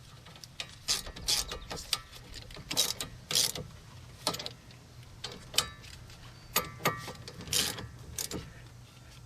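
Ratchet and torque wrench clicking irregularly as the rear brake caliper bolts are run in and tightened to torque spec.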